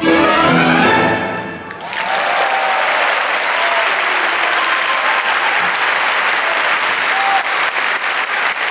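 A klezmer band and symphony orchestra end a piece with a rising run into a final chord, which cuts off about two seconds in. A large concert-hall audience then breaks into sustained applause, with a few shouts.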